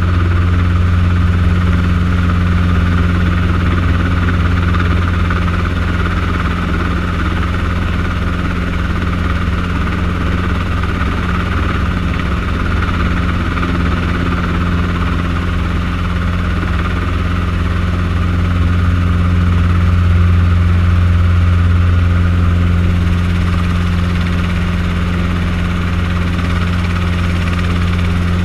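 Small helicopter's engine and rotor heard from inside the bubble cockpit while hovering low: a loud, steady low drone with a constant higher whine above it, swelling slightly about twenty seconds in.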